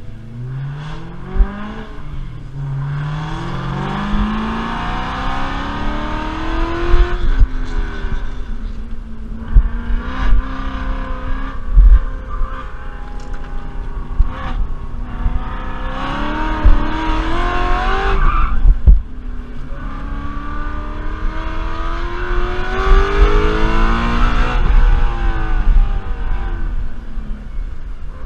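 BMW E92 M3's V8 engine pulling hard through the revs on track. The pitch climbs and drops back several times as it shifts up or lifts off, with occasional sharp thumps.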